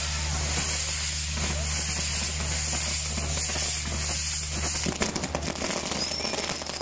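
Fireworks burning on a castillo-style tower: a steady hiss of spark-throwing pyrotechnics, joined about five seconds in by a rush of crackling pops, with a falling whistle near the end.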